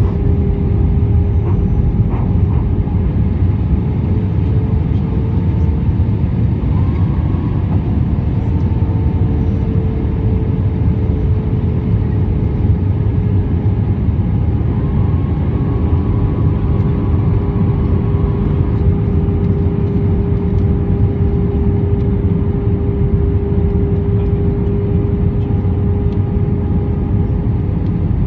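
Airbus A320 cabin noise in flight: a steady, loud rumble of engines and airflow with a constant hum.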